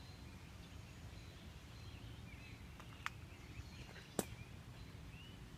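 Faint evening outdoor ambience with scattered small chirping animal calls over a steady low rumble. Two sharp clicks come about a second apart, a little past the middle.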